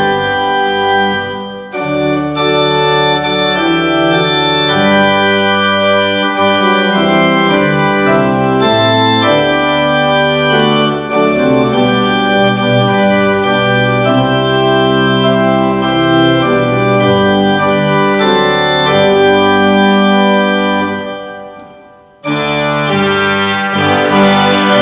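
Organ music playing slow, held chords. It fades away about 21 seconds in, and a new, brighter passage starts abruptly near the end.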